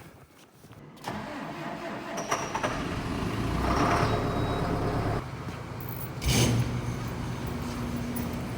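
A vehicle engine starts about a second in and runs at higher speed for a few seconds, then settles to a steady idle. A sharp knock comes about six seconds in.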